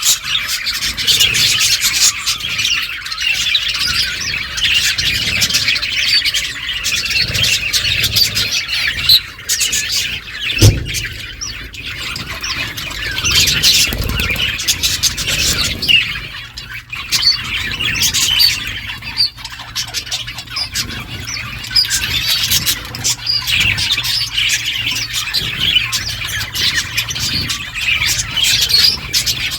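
A flock of budgerigars chattering and chirping continuously, with squawks mixed in and a brief lull about a third of the way through, and one short thump.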